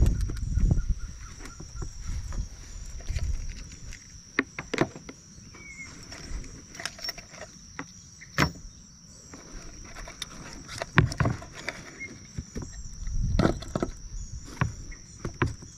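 Irregular footsteps and scuffs on a hiking trail over a steady, high-pitched insect drone. Gusts of wind rumble on the microphone at the start and again near the end.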